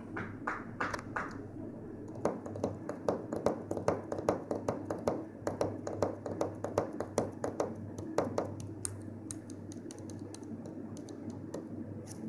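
A run of irregular light clicks and taps, densest through the middle and thinning out near the end, over a steady low hum.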